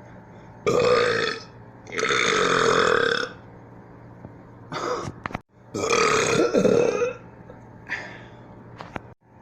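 A person belching loudly on purpose, five burps in a row. Three are long, the middle one lasting over a second, with two short ones between them.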